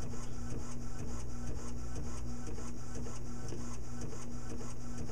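Primera Bravo II disc publisher's inkjet printer printing a disc label: a steady mechanical hum with rapid, even strokes of the print head about four or five a second.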